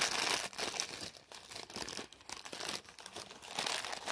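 Crinkly wrapping of a small yarn advent-calendar packet being crumpled and torn open by hand. It gives an irregular crackling, loudest near the start.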